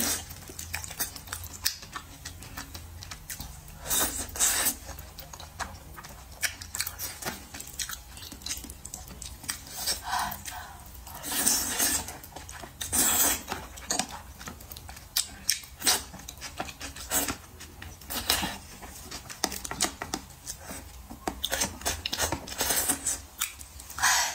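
Close-miked mukbang eating: wet chewing of soft vegetables in chili oil, with mouth clicks and several longer slurps as pieces are sucked in from chopsticks.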